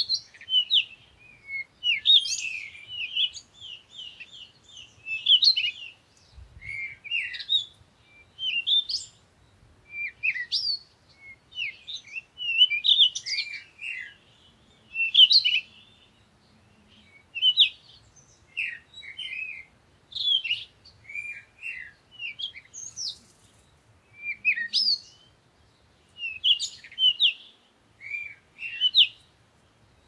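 Small songbirds chirping in quick, high-pitched phrases, about one a second, with short gaps between them.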